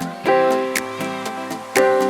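Instrumental background music: plucked notes and chords over a steady ticking beat.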